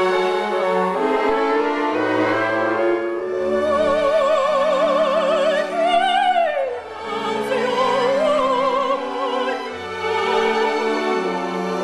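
An operatic soprano sings with wide vibrato over sustained orchestral accompaniment. Her line climbs to a high note about six seconds in, breaks off, then carries on in a second phrase.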